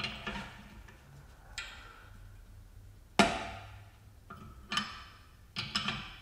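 Metal clinks and clanks as an open-end wrench is fitted to and turned on a bearing puller's spindle, set against a transmission rear ball bearing. The loudest clank comes about three seconds in, with a quick cluster of clinks near the end.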